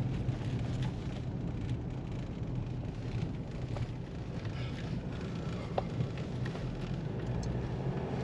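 Steady road and engine noise inside a moving car's cabin, a low hum with a faint click about six seconds in.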